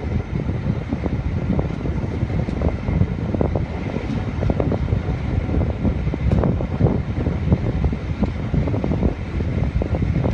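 British Rail Class 205 'Thumper' diesel-electric multiple unit running along the line, heard from an open carriage window: a steady low running noise with many short knocks from the wheels on the track, and wind buffeting the microphone.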